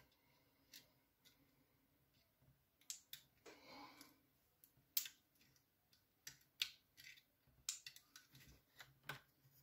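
Faint, scattered sharp plastic clicks, about eight of them, with a brief rustle about four seconds in, as the clear plastic housing of an LED third brake light is handled.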